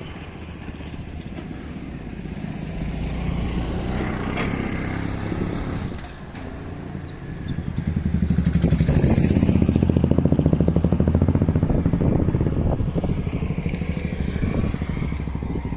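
Road traffic at a busy roundabout, building in level, with a motorcycle engine close by and loudest from about halfway through until near the end.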